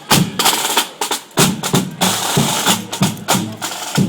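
Marching parade drums beating a loud, driving rhythm of repeated strikes.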